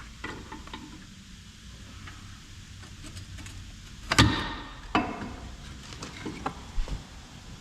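Metal hand tools and suspension hardware being handled: a loud sharp clank about four seconds in that rings briefly, followed by a few lighter clicks and taps.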